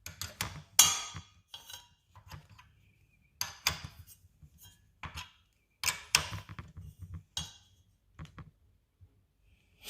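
Steel wrench clinking and knocking against the shift-linkage nut and hardware as the nut is tightened: irregular sharp metal clinks with a short ring, a few clusters a second or two apart.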